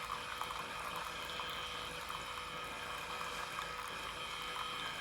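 Keurig K-Mini Plus single-serve coffee maker brewing: coffee streams into the cup over a steady hum from the machine.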